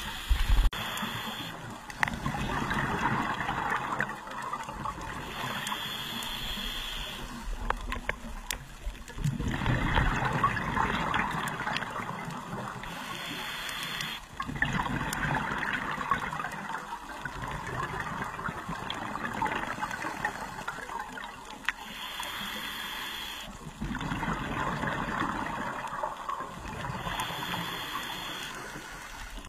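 A scuba diver breathing through a regulator underwater. Each breath is a short hiss of inhalation, followed by a longer burble of exhaled bubbles, repeating every few seconds.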